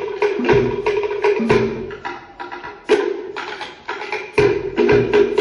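Cook Islands drum ensemble: wooden slit log drums beaten in a fast, driving rhythm over the thumps of a large bass drum. The beat thins out briefly about two seconds in and again around four seconds, then comes back full near the end.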